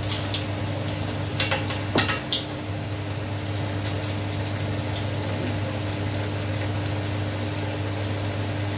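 Stir-fry sizzling in the pan over a steady low hum, with a few light clicks of a utensil against the pan in the first few seconds.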